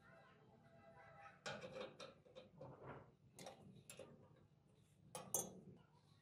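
Faint, scattered clinks and knocks of metal parts being handled, with one sharper click about five seconds in, over a low steady hum.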